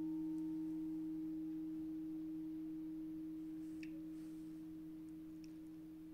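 A singing bowl, struck just before, ringing with one pure, clear tone that slowly fades. A steadier, lower tone hums underneath.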